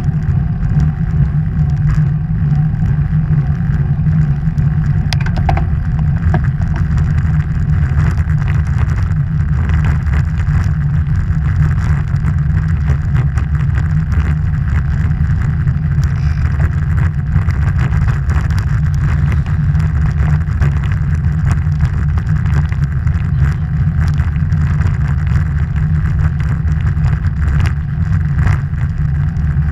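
Wind rushing over the microphone of a bike-mounted action camera while a road bike is ridden, a loud steady rumble, with tyre noise on the tarmac and occasional small ticks.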